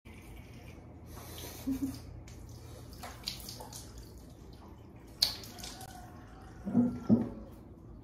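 Water splashing at a bathroom sink as cleanser foam is rinsed off a face with cupped hands: a string of separate splashes, the loudest two near the end.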